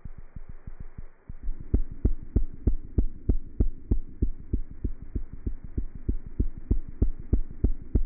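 A cat's heartbeat heard through a stethoscope: quick regular thumps, about three a second, over a low steady hum. The beats are fainter and closer together at first, then stronger after a short dip a little over a second in.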